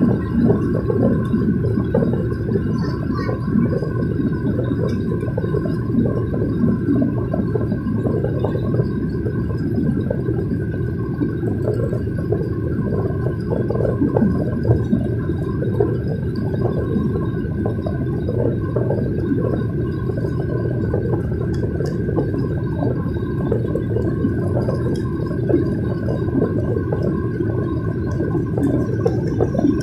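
Jet airliner cabin noise in the climb: a steady, low drone of engines and airflow with a faint steady whine above it.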